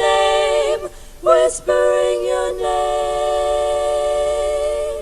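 Sisters singing a cappella in close harmony: a short sung phrase, a brief break, then one long held chord that stops near the end.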